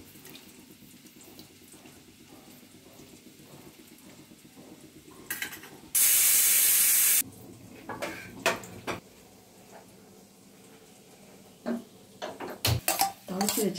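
Triple Leaf aluminium pressure cooker venting steam through its weight valve: one loud, even hiss about six seconds in, lasting just over a second and stopping abruptly, the cooker's whistle that tells the rice and moong dal are under pressure. A few light knocks of cookware come later.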